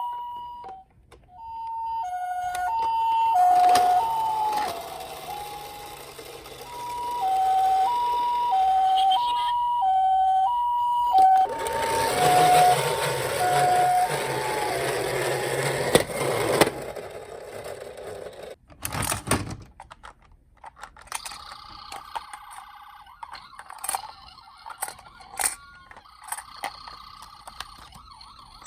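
A toy ambulance's electronic two-tone siren alternating between a high and a low beep, stopping and starting again in short runs. About halfway through it gives way to plastic rattling and rolling noise, then scattered clicks and taps of toy cars being handled.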